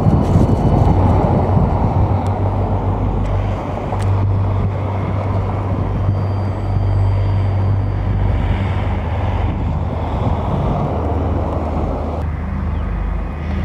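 Wind buffeting the microphone with a heavy, steady low rumble, strongest in the first few seconds.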